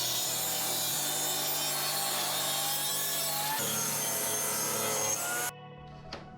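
Power tool cutting a notch into wood, running steadily and stopping abruptly about five and a half seconds in, over background music.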